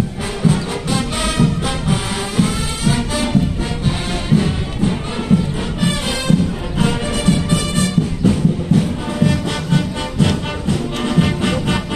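Marching band playing: brass instruments sounding sustained melody lines over a steady low drum beat of about two beats a second.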